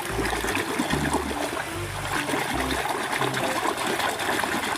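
River water splashing and trickling, with many small irregular splashes as hands stir through the shallows.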